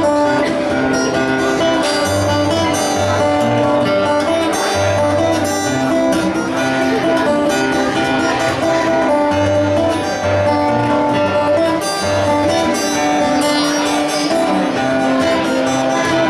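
Solo steel-string acoustic guitar playing an instrumental passage, plucked notes ringing over a steady low bass line.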